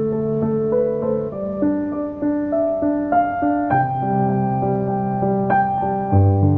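Background music: a gentle piano piece with sustained notes.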